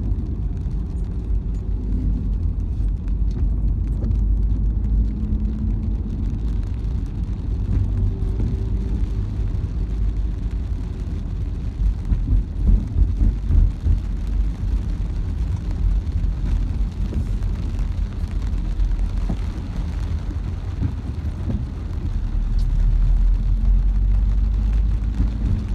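Car cabin noise while driving on a wet road: a steady low rumble of engine and tyres, with faint scattered ticks of rain on the windscreen. It gets louder and more uneven about halfway through.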